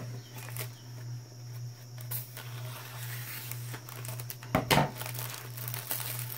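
Plastic air-column packaging crinkling as it is handled and cut with scissors, with a couple of sharp snips about four and a half seconds in. A steady low hum runs underneath.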